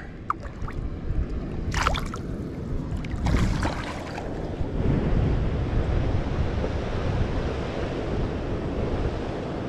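Wind rushing on the microphone over shallow lake water, with two short splashes in the first few seconds as a released northern pike kicks its tail and swims off.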